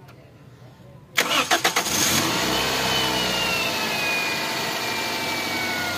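Toyota VVT-i four-cylinder petrol engine cranked by the starter for about a second, then catching and running at a steady idle, with a whine that slowly falls in pitch. It starts at once after a faulty camshaft position sensor (code P0340) was replaced; that fault had made it crank for a long time and hunt at idle.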